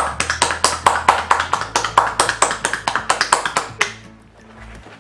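Rapid, even hand tapping on a child's back, about seven pats a second, stopping a little before four seconds in. This is the percussion stroke of a drainage massage, meant to loosen phlegm in bronchitis. Background music plays underneath.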